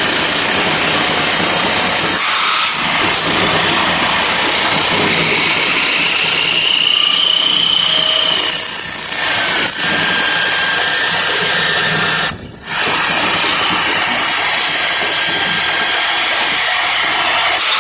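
Turret lathe running with a steady, dense machine noise. A high tone slowly rises and then falls away between about five and nine seconds in.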